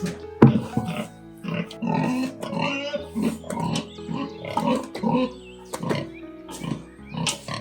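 An animal grunting over and over in short, low calls, about two a second, over background music with held tones.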